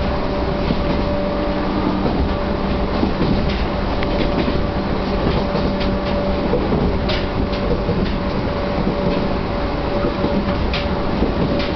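Chichibu Railway 1000 series electric train (ex-JNR 101 series), heard from inside the car while running at a steady speed. A continuous rumble carries an unchanging whine, with irregular clacks of the wheels over the rail joints.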